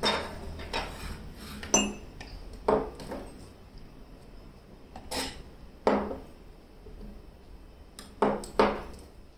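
Ceramic mug and plastic stand knocking and clinking on a tabletop as they are handled and set down: a string of separate knocks, two close together near the end.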